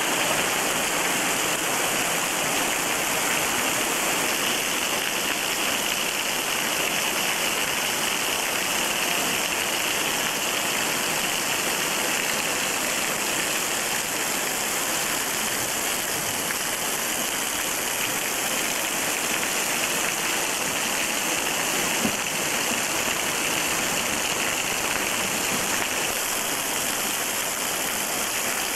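Steady, even rush of falling water: a small waterfall pouring down a rock face and spraying and dripping onto the rocks of the river bed, recorded on a VHS camcorder.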